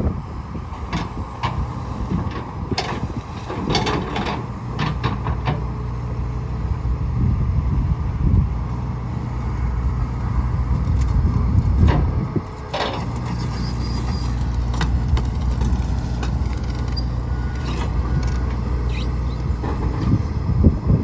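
John Deere 245G excavator's diesel engine running steadily, with scattered knocks and clanks as it handles the oak logs and scrapes the utility trailer.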